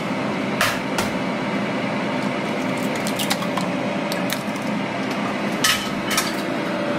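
Eggs knocked on a wooden cutting board and cracked one-handed into a glass bowl of milk. Several short sharp knocks and taps come over a steady background hum.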